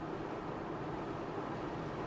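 Steady road and engine noise of a car driving at highway speed, an even hum without distinct events.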